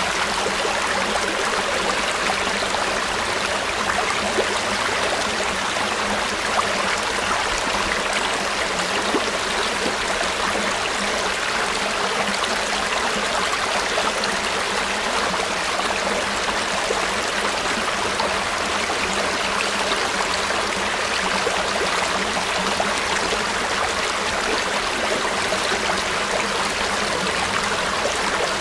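A river flowing steadily, its water rushing and burbling without a break.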